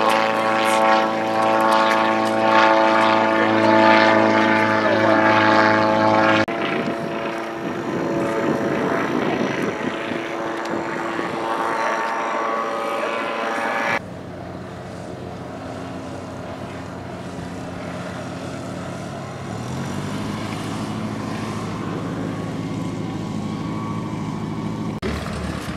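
Gyroplane's propeller engine droning steadily overhead. The sound cuts off abruptly about six seconds in, and a softer propeller-engine drone follows, stepping down again about halfway through.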